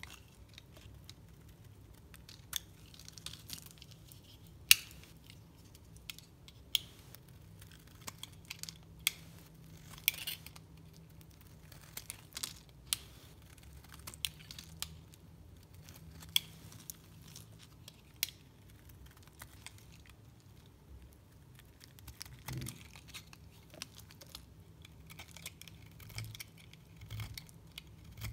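Utility-knife blade carving a bar of dry soap, with chunks and flakes cracking off in irregular crisp cracks and scrapes. There is a quieter spell about twenty seconds in and denser scraping near the end.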